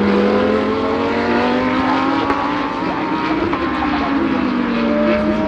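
GT3 race car engines running hard on track, more than one engine note overlapping, their pitch rising and falling as the cars accelerate, shift and pass.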